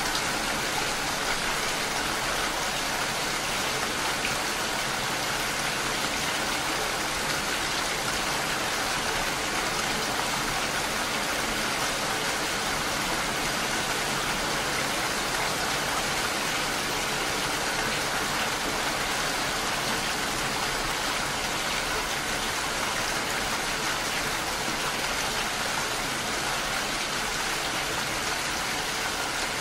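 Steady rain falling, an even hiss of rain and drops that keeps up without a break.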